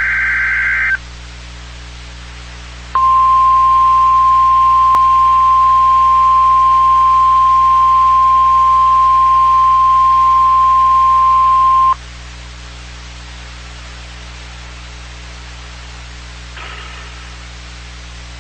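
EAS/NOAA Weather Radio test: the end of a warbling digital SAME header burst stops about a second in. About two seconds later the steady 1050 Hz weather radio warning alarm tone comes in and holds for about nine seconds, over a constant broadcast hum and hiss.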